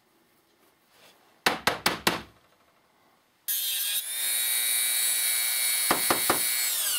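A few sharp handling clicks, then a small handheld rotary tool with a cut-off disc switches on about halfway in and runs at a steady high whine, with a few brief knocks near the end.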